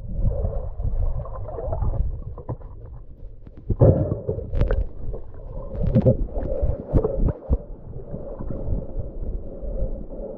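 Muffled underwater sound of a river: a low rumbling and gurgling of moving water, with several sharp clicks and knocks around the middle as a gloved hand lifts a pair of sunglasses from among the rocks on the bottom.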